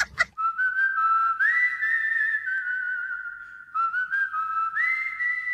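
Whistling: a slow tune of long held notes that step up in pitch, in two phrases with a short break about three and a half seconds in.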